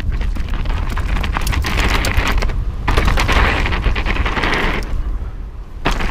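Wind buffeting an action camera's microphone as a mountain bike rides fast over rocky ground, with tyre noise and a dense clatter of the bike rattling over bumps. The sound changes abruptly about three seconds in and again near the end.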